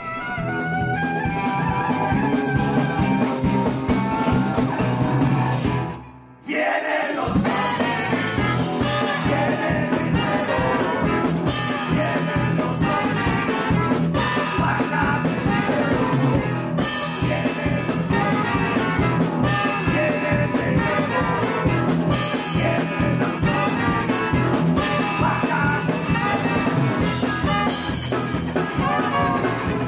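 Full band music with a steady beat, breaking off for about a second around six seconds in and then starting again.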